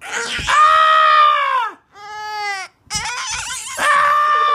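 Toddler wailing in a tantrum: a long drawn-out cry, a shorter one, then another long cry near the end, each dropping in pitch as it trails off.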